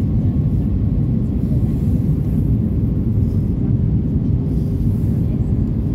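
Lufthansa Airbus A320neo's steady low rumble of jet engines and airflow during the landing approach, with a faint steady hum above it.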